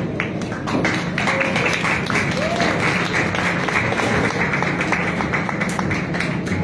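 Audience applauding, with clapping that builds up within the first second and then carries on steadily, over background music.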